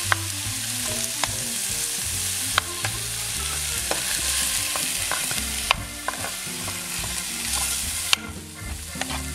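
A metal spoon stirring crème fraîche into chicken escalopes and onions in a hot non-stick frying pan: steady sizzling, with sharp clicks and scrapes of the spoon against the pan. The sizzle drops away near the end.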